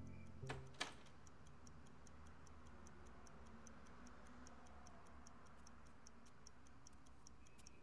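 A clock ticking steadily and faintly in a quiet room, a few even ticks a second. Two louder clicks come just before the ticking settles in.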